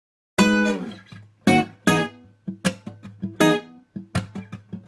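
Intro music: acoustic guitar chords struck in a syncopated rhythm, each ringing and fading before the next.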